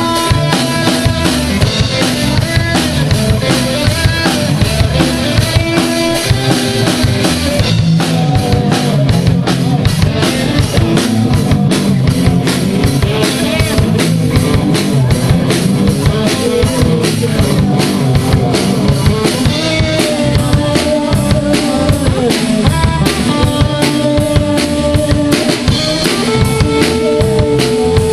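A band playing live, the drum kit's bass drum and snare keeping a steady beat under sustained instrument notes.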